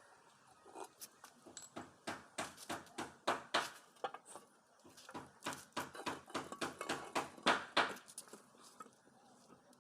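Metal clinking and tapping, many irregular knocks several a second, as hand pump parts and tools are handled during the repair; the knocks fade near the end.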